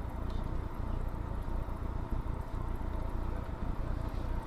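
Steady low rumble of road traffic and idling car engines.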